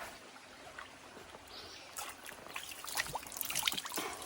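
Stream water trickling and splashing over rocks, with a flurry of irregular small splashes and clicks in the second half.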